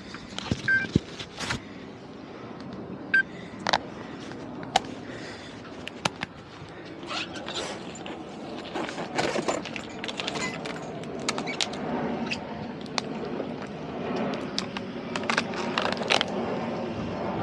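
Scattered knocks, clicks and clatter of gear being handled aboard a small boat, with a low steady running sound that builds in the second half.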